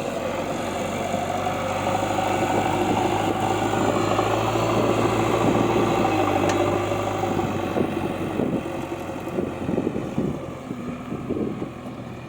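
Engine of a heavy working machine running with a steady low hum. It grows louder toward the middle, then fades and turns uneven near the end.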